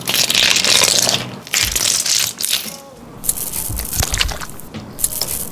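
A knife blade scraping the scales off a whole raw fish: dense rasping strokes for about the first second and a half, then softer crackling and ticks as scales flake loose.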